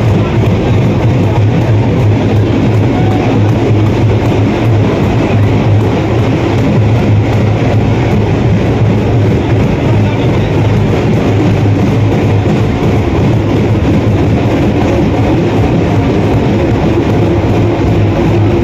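Loud music, dense and steady, with a strong bass.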